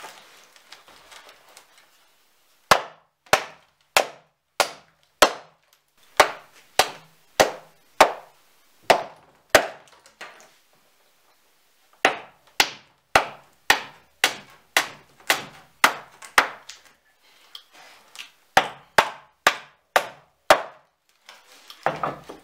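Steel hammer striking old forged nails in a wooden floorboard to knock them out, sharp blows at about two a second in three runs with short pauses between.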